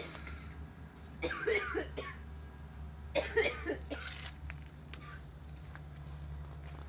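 A person clearing their throat twice, a second or so apart, over a low steady hum.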